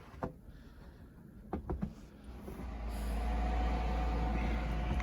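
Snowplough truck approaching as it clears the snowed-in road: a low engine rumble that starts about halfway in and grows steadily louder, with a faint steady whine over it.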